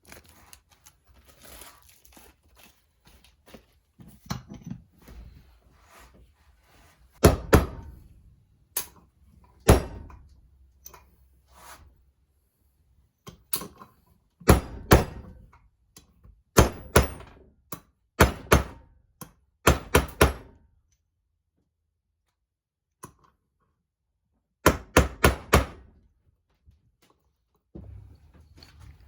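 Sharp knocks of a seal being tapped into an engine case: single blows at first, then quick groups of two to four, with pauses between.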